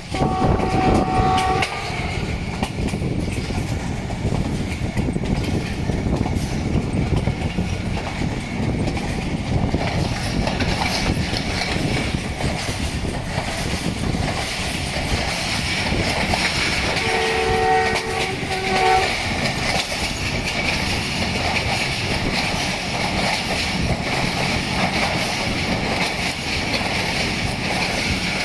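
Pakistan Railways ZCU 20 diesel-electric locomotive's horn sounding two blasts of a multi-note chord, a short one right at the start and a slightly longer one a little past halfway, over the steady running noise of the train on the track.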